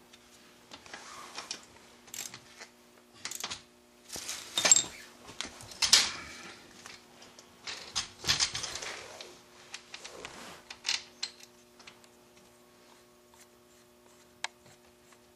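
Metal parts of a snowmobile rear skid clinking and clattering as steel shafts, bolts and washers are handled and fitted to the aluminium rail: irregular clicks and clanks, a few louder ones, over a faint steady hum.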